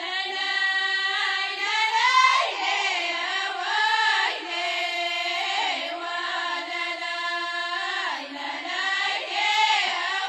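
Ahwach, Amazigh collective chant: a chorus of voices singing a drawn-out, wavering melodic line together.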